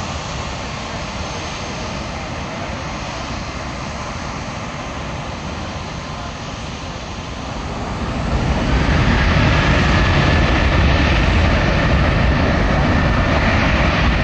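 Boeing 737-700's twin CFM56-7B turbofan engines running as the airliner rolls down the runway, growing much louder about eight seconds in as thrust comes up for takeoff. The sound is a deep rumble with a faint whine above it.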